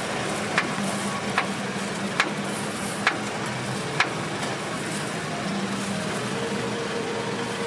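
Steady street-stall background noise with a low traffic hum, and a run of five sharp ticks about a second apart in the first half.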